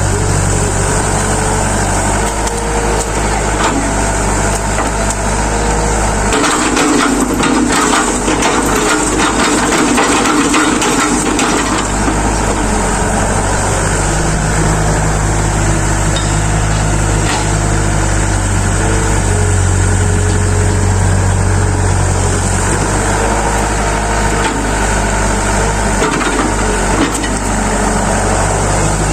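Excavator engine running steadily under load. From about six seconds in, for around six seconds, there is dense scraping and crunching, the bucket digging into dirt and stones, with a few single knocks later on.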